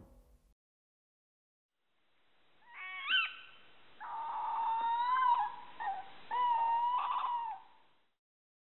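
Music cuts off just after the start. After about two seconds of silence, an animal calls: a short rising call, then two long, even calls that bend in pitch at their ends.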